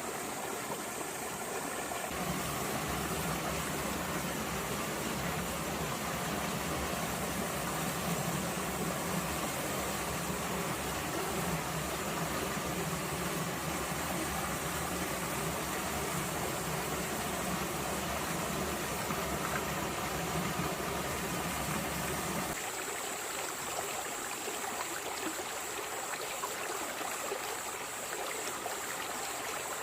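Stream water rushing and trickling over rocks, steady throughout. A low steady mechanical hum, like an idling engine, joins it about two seconds in and cuts off abruptly about three-quarters of the way through.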